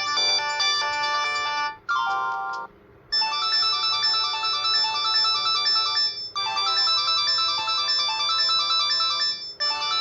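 Samsung GT-E2120 mobile phone ringtones played one after another: several short electronic melodies, each cut off after a few seconds as the next begins. There is a brief pause about three seconds in.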